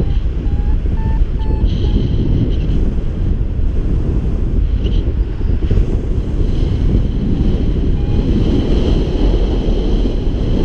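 Heavy, steady wind noise buffeting the microphone from the airflow of a paraglider in flight.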